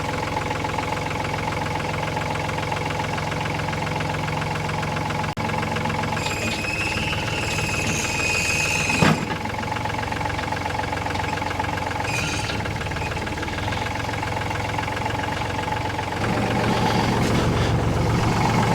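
An engine running steadily at idle, with a sharp click about nine seconds in and a deeper note to the engine near the end.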